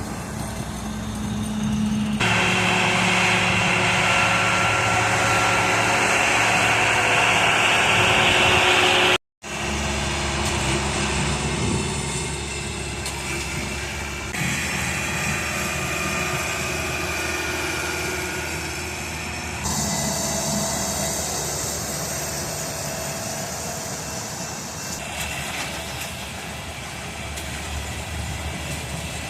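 Engines of railroad construction vehicles running steadily, in several short stretches that change abruptly from one to the next, with a brief dropout about nine seconds in.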